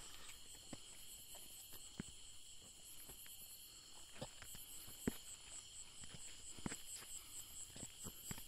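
Night insects calling: crickets holding several steady high-pitched trills, one of them pulsing about four times a second, with faint scattered clicks.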